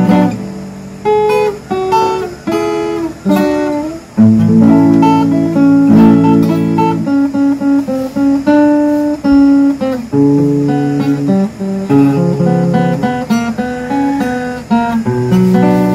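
Solo acoustic guitar played fingerstyle: a plucked melody over held bass notes.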